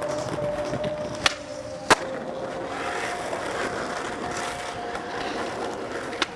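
Skateboard wheels rolling, with a sharp clack about a second in and a louder one half a second later, like the pop and landing of a trick, and another clack near the end.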